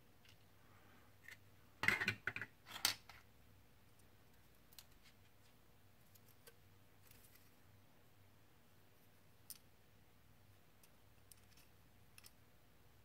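Hard plastic model-kit parts clicking and knocking together as they are handled and fitted: a quick cluster of sharp clicks about two seconds in, then a few faint ticks.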